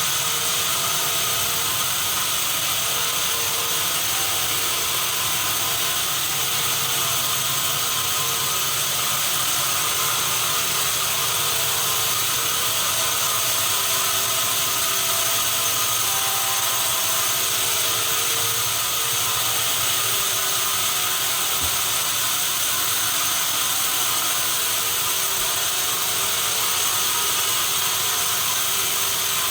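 Sawmill machinery running steadily: a continuous mechanical whir with several steady high tones.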